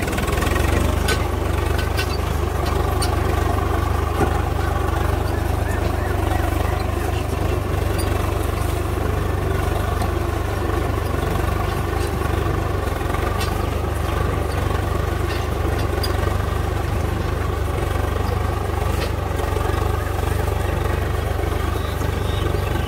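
Swaraj 855 FE tractor's three-cylinder diesel engine running steadily under load, pulling a disc plough through the soil.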